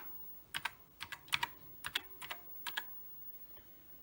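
Keys being typed on a Commodore SX-64 keyboard: about a dozen sharp clicks, mostly in quick pairs, stopping about three seconds in.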